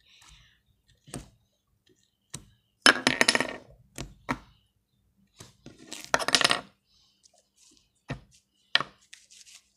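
Hands kneading and stretching sticky homemade slime: a series of short crackles and clicks, with two longer crackling stretches about three and six seconds in.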